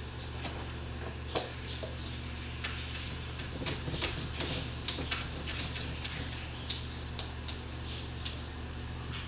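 Cat getting down from an armchair and walking on a hardwood floor: one sharp knock about a second and a half in, then scattered light clicks and taps of its paws and claws on the boards, over a steady low hum.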